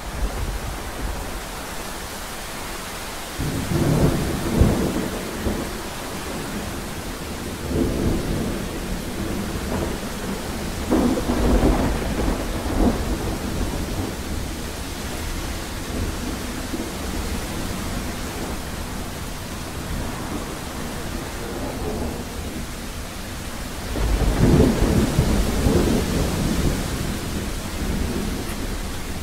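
Steady heavy rain with thunder rumbling four times over it, loudest about four seconds in and again in the last few seconds.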